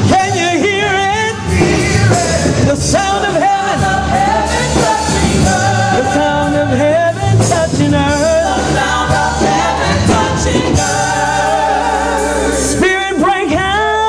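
Church praise team singing a gospel worship song live, the voices wavering with vibrato and sliding between notes over steady instrumental accompaniment.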